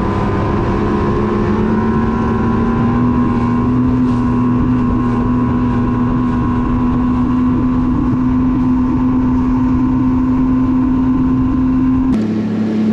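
Bass boat outboard motor running at speed across the lake with wind and water rush. The pitch climbs a little in the first few seconds, then holds steady. Near the end the engine is suddenly throttled back.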